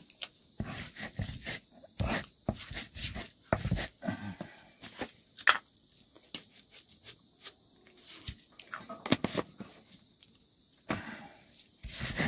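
Round hand stone worked on a flat stone grinding slab (lohoro on silauto), crushing chillies: a series of irregular knocks and scrapes of stone on stone.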